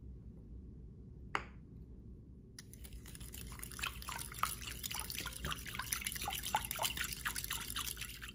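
A spoon stirring yeast, sugar and warm water in a glass bowl: quick light clicks and liquid swishing that begin about two and a half seconds in and carry on to the end. A single sharp tap comes a little over a second in.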